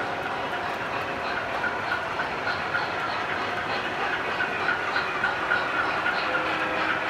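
O gauge model train of MTH Premier ALCo PA diesels rolling along the track, its wheels clicking over the rail joints about three times a second. The clicks grow louder as the train approaches.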